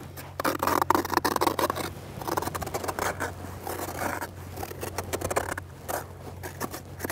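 A tlachiquero's scraper rasping the hollowed-out heart of a pulque maguey (Agave salmiana): a run of short scraping strokes in irregular clusters, loudest in the first second or so. The scraping opens the plant's tissue so the aguamiel sap keeps flowing.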